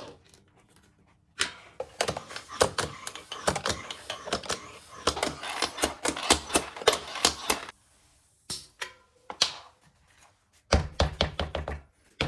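Bicycle floor pump and its hose chuck on the wheel's valve, inflating the tyre: a fast, irregular run of clicks and knocks for about six seconds, a pause, then a rougher, lower sound near the end.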